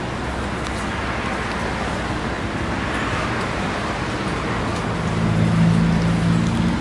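Road traffic: a steady rush of passing vehicles, with an engine hum coming in about five seconds in and getting louder.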